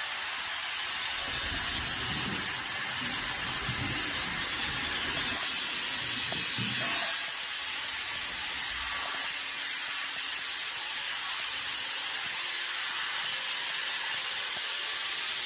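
A steady airy hiss, with low rumbles and knocks over the first seven seconds as the panels of a black-framed folding door are rolled along their track and folded shut.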